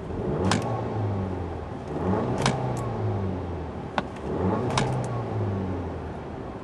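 A 2010 Volkswagen CC's turbocharged 2.0-litre four-cylinder is revved three times from idle, each rev rising quickly and then falling back. A few sharp clicks fall during the revs.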